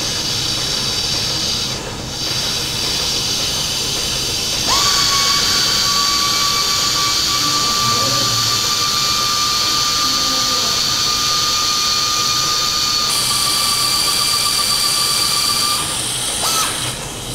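Surgical power wire driver spinning a Kirschner wire into ankle bone to pin the fracture. A steady high whine starts about five seconds in and runs for about eleven seconds, then a brief second burst follows near the end. Before the driver starts there is a steady hiss.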